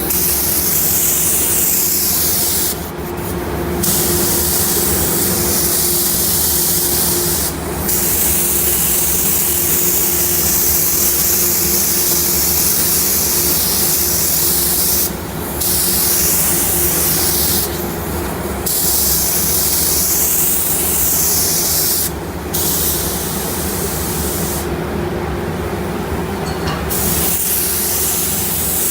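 Compressed air hissing through an Iwata LPH400 HVLP spray gun with a 1.2 tip laying on clear coat in long passes, cutting out briefly about half a dozen times as the trigger is let off between passes. Under it, a steady hum with one constant tone from the running paint booth.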